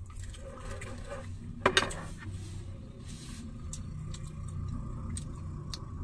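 Close-up eating sounds: chewing and small clicks of chopsticks against bowls, over a steady low hum, with one brief louder noise a little under two seconds in.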